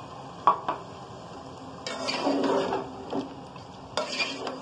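Metal spatula clinking and scraping against an aluminium cooking pot as potatoes are stirred into a simmering chicken masala. There are two sharp clinks about half a second in, a stretch of scraping around two seconds in, and more clinks and scraping near the end.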